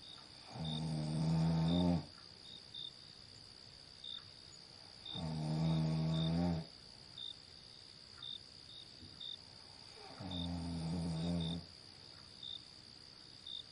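A person snoring in a slow rhythm: three long, deep snores about five seconds apart. Between them, crickets keep up a steady high chirring with short chirps.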